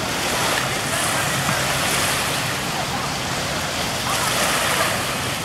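Small waves washing through the shallows, swelling and easing, with a speedboat engine idling low underneath.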